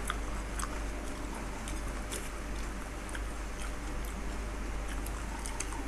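Two people chewing and crunching pani puri (fuchka), the crisp fried shells giving scattered sharp crackles and clicks.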